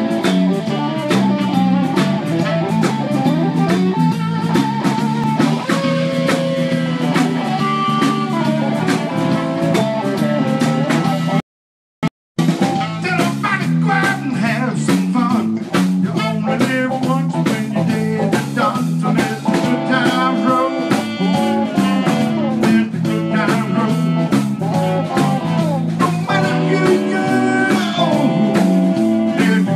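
A live blues band playing an instrumental passage: electric guitar, drum kit and saxophone over a walking bass line. The sound drops out completely for about a second near the middle.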